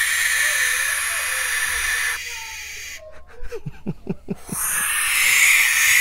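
Barn owl owlets giving their long, raspy defensive hiss while being handled for banding. Two drawn-out hisses, with a short pause holding a few soft knocks between them.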